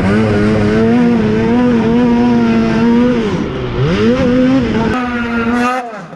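Snowmobile engine running hard at a steady high pitch, dropping sharply off the throttle about three and a half seconds in and climbing back up, then cutting back again near the end.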